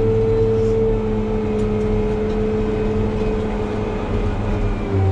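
RG170B motor grader's diesel engine running steadily under load, heard from inside the cab, with a steady whine over it that fades about four seconds in.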